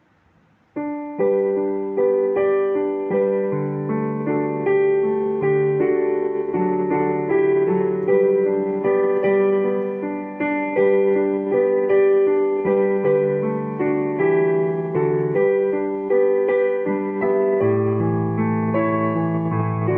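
Piano playing a song in sustained chords, starting about a second in.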